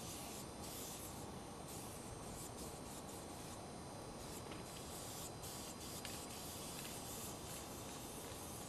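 Aerosol spray-paint can hissing in repeated bursts, some short and some longer, stopping and starting as paint is sprayed onto the side of a freight car.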